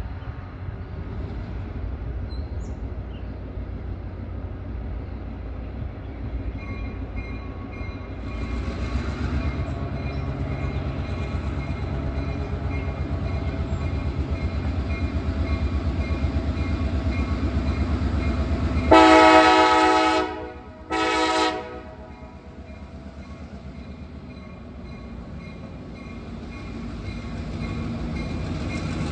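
Diesel locomotive approaching with a low engine rumble that grows louder, then sounding its air horn: a loud blast of about a second and a half followed by a short one. The rumble of the train continues more quietly afterwards.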